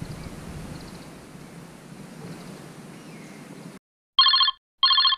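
Outdoor wind ambience on open water cuts off abruptly, then two short, loud electronic beeps follow in quick succession, each a chord of several tones: an edited video-transition sound effect.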